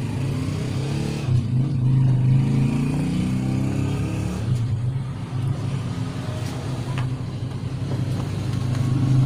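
A motor vehicle engine running, its pitch rising and falling as it revs a few seconds in, then settling to a steady drone.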